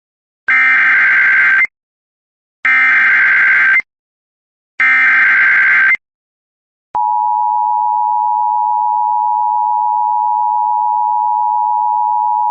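Emergency Alert System SAME header: three bursts of buzzy digital data tones, each a little over a second long, with short silences between them. About seven seconds in, the steady two-tone EAS attention signal begins and holds.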